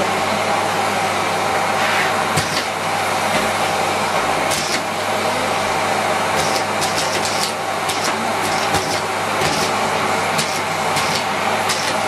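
Miele Complete C3 PowerLine canister vacuum cleaner running steadily, with scattered short clicks and rattles as biscuit crumbs are sucked up the hose.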